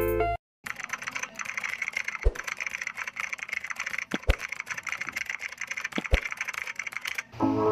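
Computer keyboard typing sound effect: rapid, continuous key clicks, with three heavier key strikes about two seconds apart. Music cuts off just before the typing and comes back in near the end.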